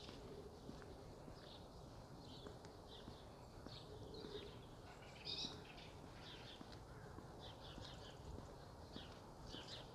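Faint outdoor quiet with small birds chirping at intervals, one louder chirp about five seconds in, over soft footsteps on a pavement.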